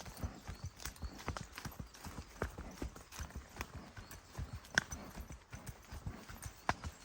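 Footfalls on a forest track: a steady run of uneven knocks and crunches, several a second, with one sharper click about five seconds in.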